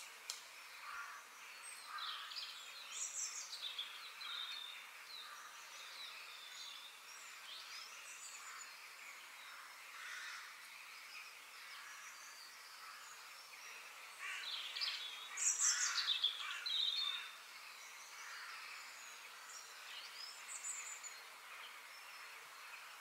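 Birds chirping and calling over faint outdoor background noise, with a louder flurry of calls about fifteen seconds in.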